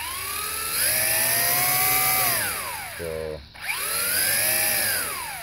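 Motors of a JJRC H26D toy quadcopter whining as the throttle is pushed up and let off twice, each time rising in pitch, holding, then falling away. All four propellers are spinning clockwise after a motor swap, so the drone makes no lift and stays on the ground.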